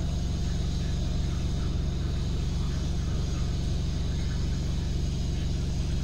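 Samsung 8 kg top-load washing machine with a digital inverter motor in its spin cycle, the drum spinning very fast with a steady low hum and rumble.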